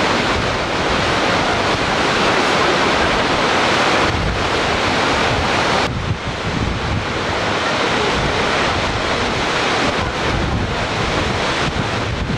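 Crest-gate discharge at Yuda Dam: a loud, steady rush of water pouring from the gates and crashing into the plunge basin, with spray-laden wind buffeting the microphone. The sound dips briefly and shifts about halfway through.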